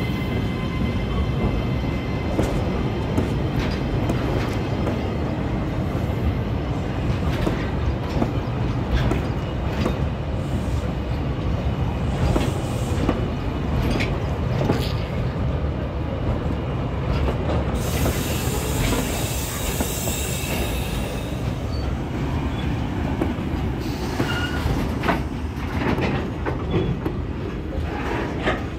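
Container freight train's wagons rolling past close by: a steady heavy rumble of steel wheels on the rails, with irregular clicks and clacks over the rail joints. High-pitched wheel noise rises for a few seconds just past the middle and again near the end.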